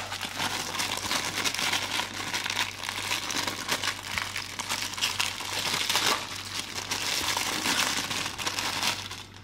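Thin clear plastic bag crinkling and rustling steadily as hands work it open around a puzzle.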